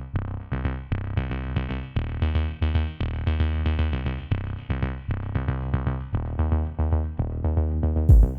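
Background music: electronic beat with heavy bass and synthesizer notes in a regular rhythm.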